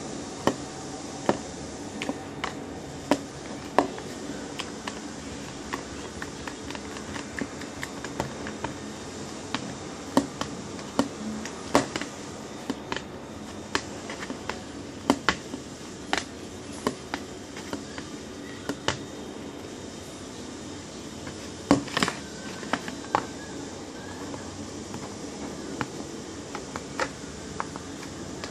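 Wooden ice-cream stick stirring glue slime in a clear plastic tub: irregular sharp clicks and taps as the stick knocks against the tub, with a louder cluster about two-thirds of the way in, over a steady low hiss.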